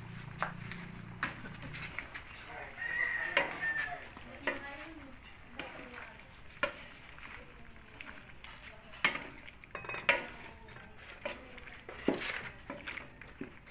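Wooden spatula scraping and knocking against an aluminium wok while stirring pork pieces as they fry with a light sizzle. The strokes come irregularly, about one a second.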